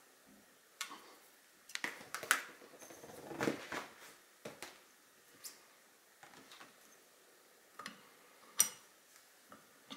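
Small clicks, taps and rubbing as hands handle a riflescope in its rings on a scope mount. A cluster of knocks comes about two to four seconds in, and one sharp click comes near the end.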